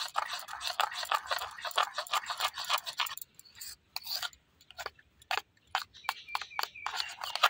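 Steel spoon stirring food colouring into a milky ice-cream cream in a paper bowl: quick scraping and clinking of the spoon against the bowl for about three seconds, then slower, scattered taps.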